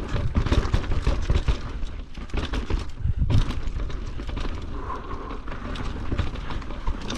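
Downhill mountain bike clattering over a rough dirt trail at speed: tyres on dirt and roots, with the chain and frame rattling through many quick knocks over a steady low rumble. A heavier knock comes just after three seconds in.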